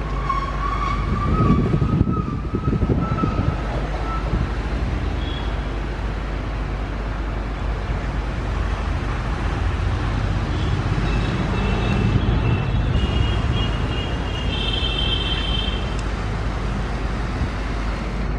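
Passenger train coaches rolling along the track, wheels rumbling and clattering on the rails. A high, slowly rising wheel squeal sounds for the first few seconds, and a higher squeal comes again about two-thirds of the way through.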